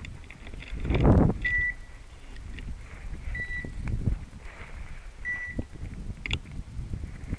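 A hunting dog's beeper collar gives three short, steady high beeps about two seconds apart. Under it is the rustle and crackle of brush and footsteps as someone pushes through dense scrub, loudest about a second in.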